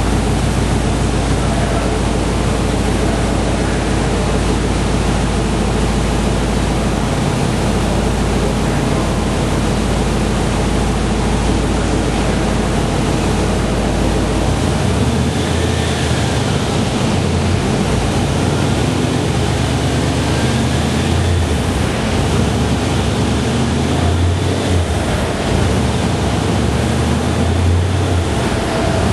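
2006 Pontiac GTO's 6.0 L LS2 V8, fitted with Kooks long-tube headers, off-road mid-pipes and a Borla cat-back exhaust, running on a chassis dyno, heard as a loud, steady rush of noise over a low rumble. The low rumble changes about halfway through.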